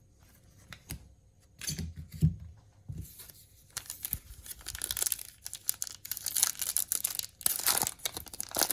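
A trading-card pack wrapper being torn open and crinkled by hand, after a few soft handling thumps; the crackly tearing runs through the second half.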